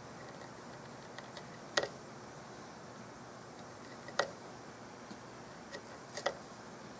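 Hand-held chisel paring end grain in the corner of a wooden rifle-stock inlet. Three sharp clicks about two seconds apart, the last one doubled, with a few fainter ticks between them, as the edge snaps through the wood fibres.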